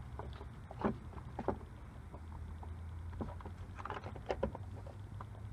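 Plastic case cover of a portable jump-starter power pack being handled and fitted: irregular light clicks and knocks of plastic, with wires being tucked in, over a steady low hum.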